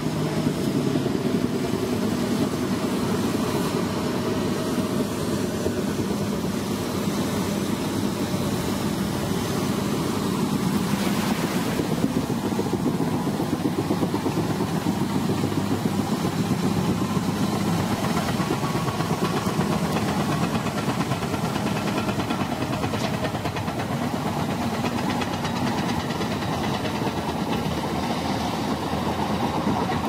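Heavy diesel engine of a large crawler bulldozer running steadily under load.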